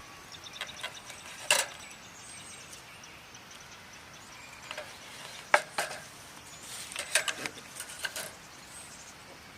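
Scattered sharp clicks and knocks, the loudest about a second and a half in and again midway, with a quick cluster near the end.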